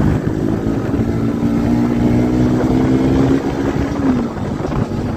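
Motorcycle engine running while riding, with wind rushing over the microphone; the engine's pitch holds steady, then drops about four seconds in.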